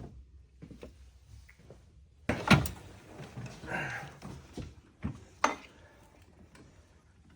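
Hand-handling knocks and clinks of tools and parts in an engine bay during intake work: a few sharp knocks, the loudest about two and a half seconds in and a couple more around five seconds.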